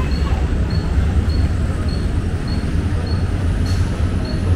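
Mumbai suburban electric local train standing at the platform, giving a steady low hum. A faint, short high beep repeats about every 0.6 seconds.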